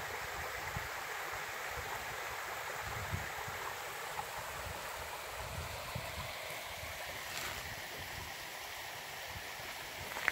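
Small rocky stream rushing steadily as water runs over stones and a little cascade, with scattered low bumps and a brief click near the end.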